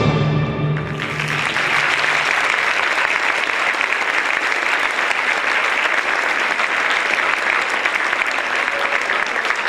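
The last held note of the dance music rings out and fades, and about a second in an audience breaks into steady applause.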